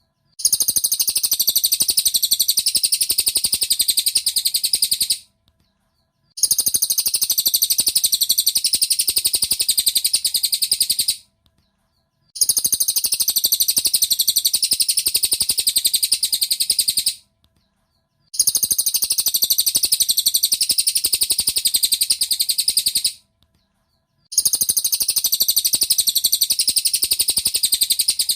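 Cililin bird song: a rapid, high-pitched trilling chatter in bouts of about five seconds, separated by pauses of about a second and repeating near-identically five times, as a looped master recording.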